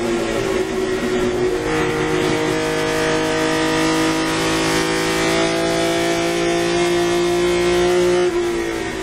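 BMW M1 race car's straight-six engine heard from inside the cockpit. Revs fall under braking for the first second and a half, then the throttle comes back on and the pitch climbs slowly for several seconds. Near the end the note breaks off as the driver lifts.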